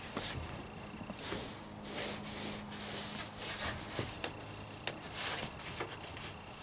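Scattered clicks and light knocks with short stretches of scraping or rubbing, over a faint steady hum.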